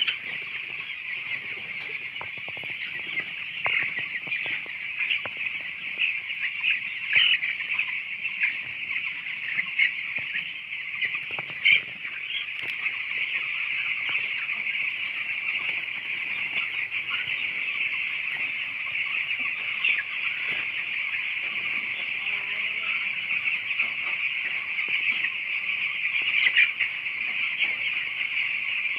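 A large flock of young broiler chicks peeping continuously: a dense, steady chorus of many overlapping high-pitched chirps, with now and then a louder single peep standing out.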